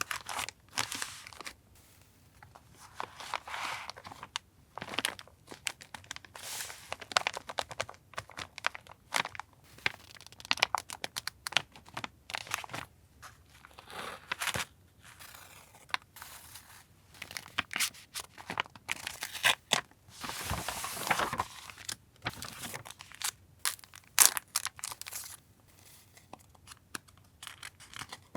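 Paper journaling supplies being handled and unpacked: irregular crinkling, rustling and tearing of paper and packaging, with sharp little clicks and pauses between.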